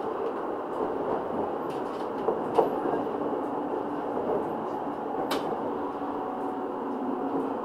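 R2.2 low-floor tram running along the track: steady wheel-on-rail rolling noise with a faint steady whine, and a few sharp clicks about two and a half and five seconds in.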